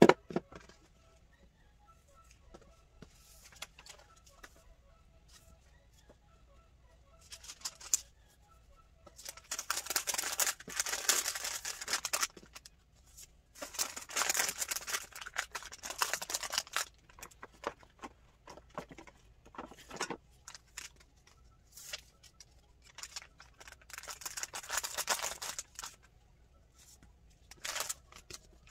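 Paper and tissue rustling and crinkling as items are handled and wrapped by hand, in several bursts of a few seconds each with quiet pauses between, the first starting about nine seconds in.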